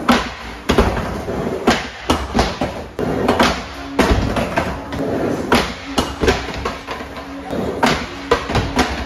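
Skateboard on an indoor mini ramp: wheels rolling on the ramp surface and the board knocking hard on the coping, then clattering down the ramp when the rider comes off, with repeated sharp knocks. Background music plays underneath.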